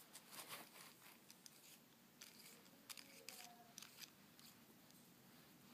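Faint scattered clicks and light scrapes of small objects being handled, over near-silent room tone.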